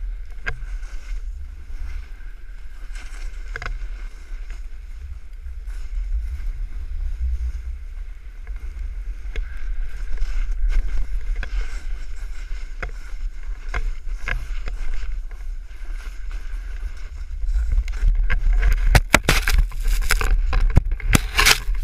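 Wind buffeting a pole-held action camera's microphone as a snowboard runs downhill: a steady low rumble with scattered scrapes of the board over snow. Near the end it turns louder and more broken, with dense crackling scrapes as snow sprays over the camera.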